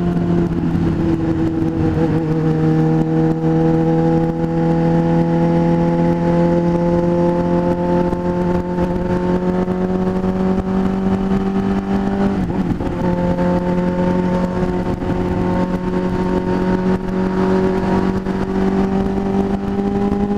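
Motorcycle engine running at a steady cruise, its pitch slowly creeping up with a brief dip about twelve seconds in, over wind rush.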